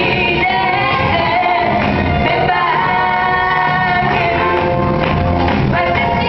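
Pop song playing with a group singing along loudly, in a large hall.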